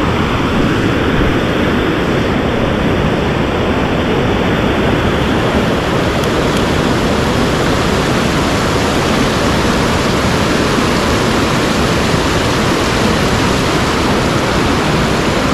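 Mountain headwater stream water rushing over rocks: a loud, steady hiss that gets brighter about five seconds in.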